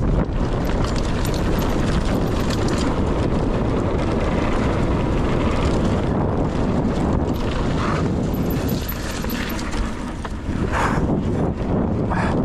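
Wind buffeting the camera microphone and knobby tyres rumbling over a dirt trail as a mountain bike rides downhill, with a few short rattles in the second half.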